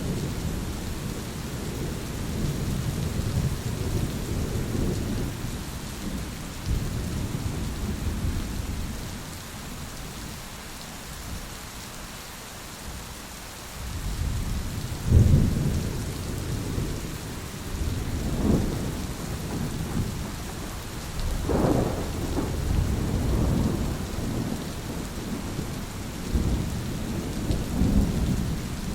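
Thunderstorm: steady heavy rain with rolling thunder. The rumbling eases to a lull about a third of the way in, then a loud thunderclap about halfway through is followed by several more rumbles.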